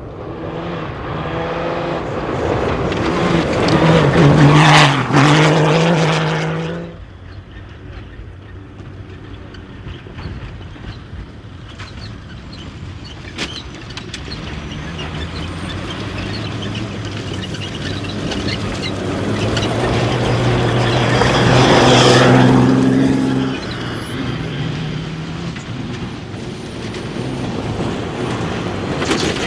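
Two rally-raid competition vehicles passing at speed with engines working hard. The first builds to a peak about five seconds in and cuts off sharply about two seconds later. The second builds slowly and peaks around twenty-two seconds in before dropping away.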